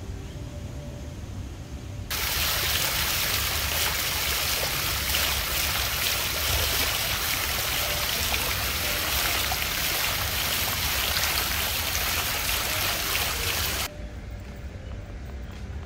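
Water falling down a tiled wall fountain and splashing into the pool below: a loud, steady hiss of water that starts suddenly about two seconds in and cuts off near the end. A low rumble lies underneath throughout.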